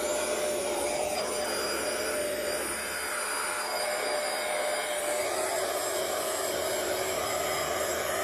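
Bissell ProHeat 2x Revolution Pet Pro Plus carpet cleaner running, its suction drawing through the hose and hand tool as the tool is worked over the carpet. The sound is a steady motor whine over an even hiss.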